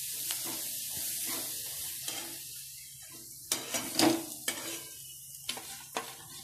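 Metal spatula scraping and stirring onion, garlic and green chillies frying in oil in a steel kadhai, with a sizzle that fades away. In the second half come several sharp clinks of a spoon on the steel bowl and pan as the gram-flour batter is poured in, the loudest about four seconds in.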